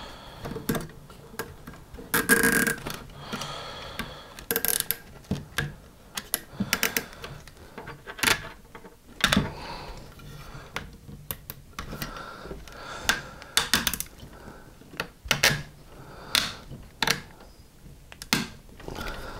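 Nylon zip ties being threaded around a plastic pump tank and pulled through, with irregular sharp clicks and rattles of the plastic parts being handled, some clicks coming in quick runs.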